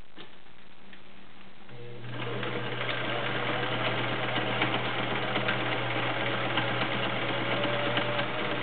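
Viking 6370 sewing machine starting up about two seconds in and running steadily, its needle stitching rapidly as it sews a stretch straight stitch from its pattern cam.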